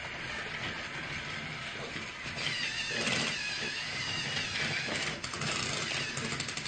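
Battery-powered toy train running on plastic track: a motor whine that wavers up and down in pitch, then a fast, even clicking from about five seconds in.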